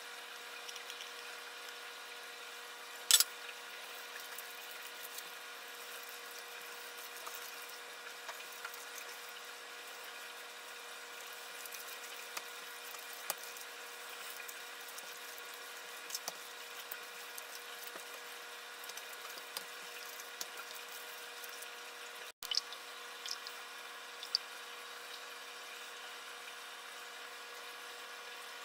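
Soft, wet handling sounds of hands rubbing grated garlic into raw chicken thigh meat, with small scattered clicks and one sharp click about three seconds in, over a steady machine hum with several fixed tones.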